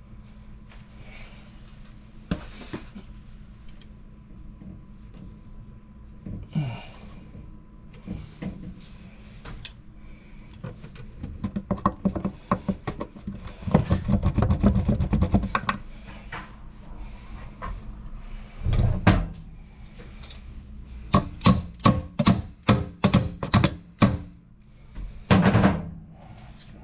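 Hand-tool work at a washing machine valve box: scattered knocks and clicks, then a stretch of rapid rattling in the middle, and a quick run of about ten sharp taps near the end.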